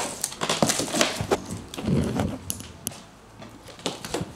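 Handling of a cardboard shipping box and its foam packing: a string of knocks, taps and scrapes, busiest in the first two seconds and sparser after.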